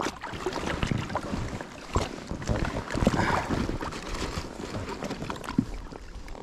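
Water lapping and splashing around a float tube, with wind rumbling on the microphone and a few small knocks of gear being handled.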